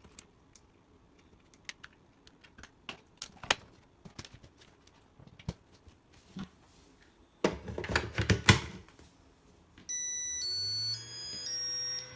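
Plastic clicks and rattles as a Makita DC18RF battery charger is handled, then the charger's power-on melody: a short tune of stepped electronic beeps. Under the tune a steady hum and a slowly rising tone start, the charger's cooling fan spinning up.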